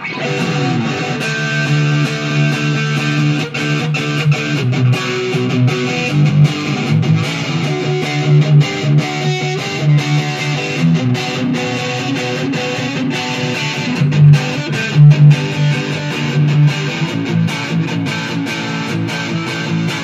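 Junior by K-Van L200 Les Paul-style electric guitar played with a distorted amp tone: a continuous rock riff of low chords and picked notes.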